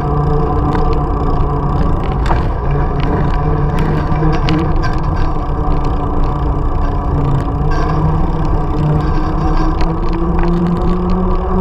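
Mountain bike rolling on asphalt: a steady droning hum from the tyres on the pavement, rising slightly in pitch near the end, over wind rumble on the camera microphone, with small scattered rattles from the bike.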